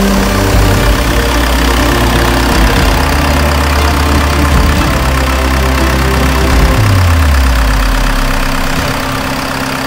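4BT Cummins 3.9-litre inline four-cylinder turbo diesel idling steadily. About seven seconds in, a low tone in its note slides downward.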